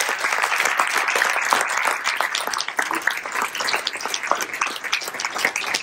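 Audience applauding in an auditorium, the clapping thinning out near the end.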